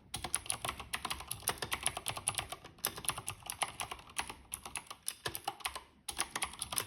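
Fast continuous typing on a Thermaltake Level 20 GT mechanical keyboard with Cherry MX Blue switches: a dense stream of sharp, clicky keystrokes, with brief pauses just after the start and at about six seconds.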